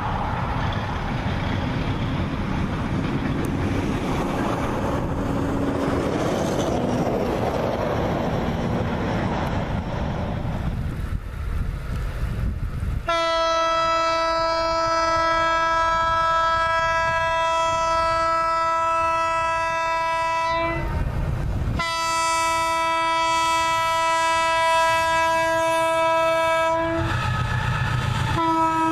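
South African 35 Class diesel locomotive (GE U15C) with a freight train: at first a steady rumble of engine and wagons at a distance. About 13 seconds in, its air horn sounds two long steady blasts separated by a short break, and a third blast starts as the locomotive passes close with a deep engine rumble.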